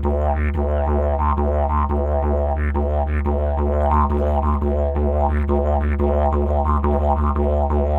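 Background music: a didgeridoo droning on one low note, its overtones sweeping in a steady rhythmic pattern.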